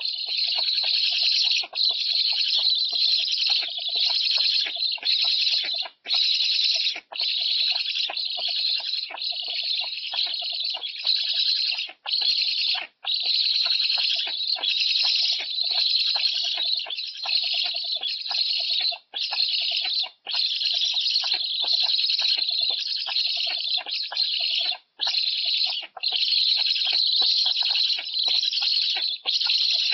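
Young black stork begging for food from the adult at the nest: rapid, raspy calls kept up almost without a break, pausing briefly every few seconds.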